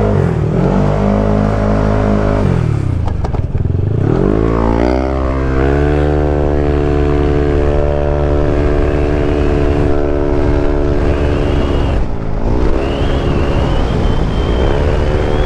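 Yamaha NMAX scooter's bored-out 195cc single-cylinder engine pulling away and accelerating. Its pitch rises, drops back, climbs again and then holds steady under way, with a short dip about twelve seconds in before it rises once more.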